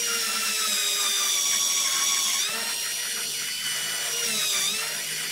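Power drill running with its bit in the edge of a hardwood board, a steady motor whine that drops in pitch about halfway through and dips again near the end as the load on it changes.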